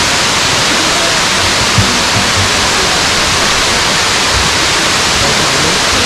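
Water of a tall waterfall falling, a loud, steady, even rush of noise, with a single brief knock about two seconds in.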